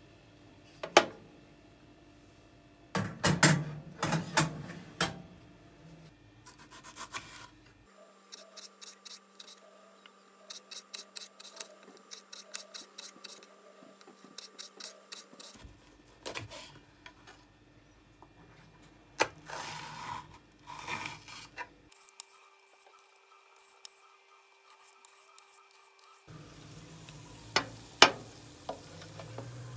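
Kitchen handling sounds: sharp metallic clanks from a metal roasting tray and utensils, and a knife cutting on a wooden chopping board in a run of quick, regular taps. The loudest clanks come about a second in, between three and five seconds in, and near the end.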